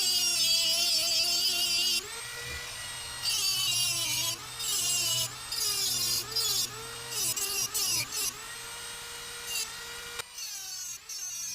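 Dremel rotary tool cutting into a chainsaw muffler's metal: a high motor whine that dips in pitch each time the bit bears down, with bursts of harsh grinding hiss broken by short gaps of free spinning. Near the end the whine drops lower.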